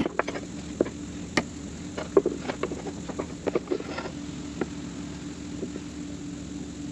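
Pliers and steel handbrake lever parts clicking and tapping as a small clip is worked onto the lever. There is a quick run of sharp clicks for the first four seconds or so, then only a few, over a steady low hum.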